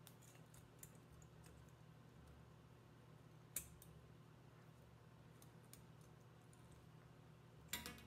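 Near silence with a few faint clicks of 18-gauge wire being wrapped by hand around an agate slice: a single sharp click a few seconds in and a quick cluster of clicks near the end.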